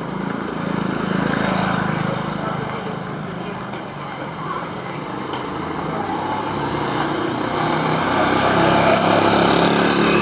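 A motor vehicle's engine running close by, a steady hum that swells twice and grows louder near the end, over outdoor street noise.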